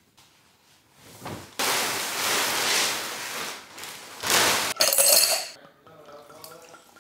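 A long rustling noise as a mattress is handled. Then ice clinks in stemmed wine glasses, and near the end red wine glugs as it is poured from the bottle into the glasses.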